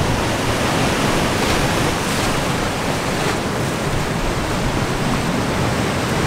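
Ocean surf breaking and washing over rocks, a steady even rush of water noise, with wind rumbling on the microphone.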